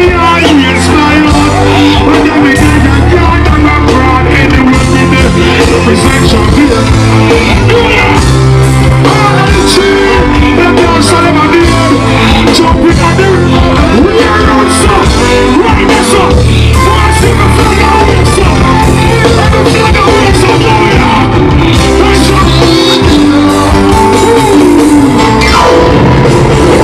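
Loud dancehall-reggae music through a concert sound system, with heavy bass and a voice singing at times.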